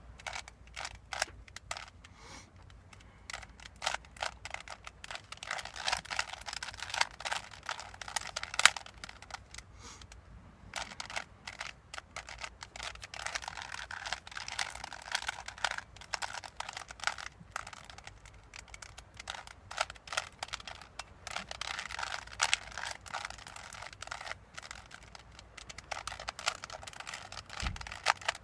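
A Rubik's Cube being turned by hand: rapid runs of plastic clicking and clacking as the layers are twisted, in bursts with short pauses between them.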